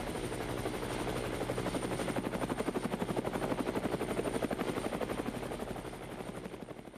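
A rapid, even chopping pulse, about eight beats a second, like a rotor, fading out near the end.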